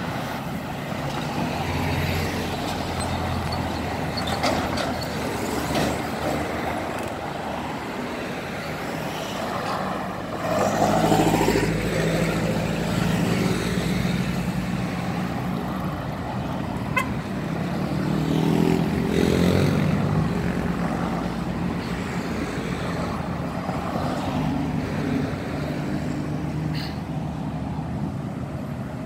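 Road traffic: motor vehicles running steadily past, with two louder passes, about a third of the way in and again about two-thirds in.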